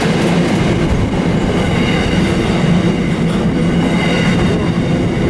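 Freight train wagons rolling past at close range: a steady rumble of steel wheels on the rails, with faint high-pitched tones ringing above it.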